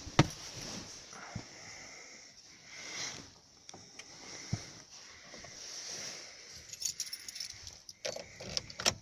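High-pitched whistle from a 2017 Hyundai Solaris engine on a cold start, swelling and fading: the sign of a failing drive-belt tensioner pulley. A few clicks and rattles come near the end.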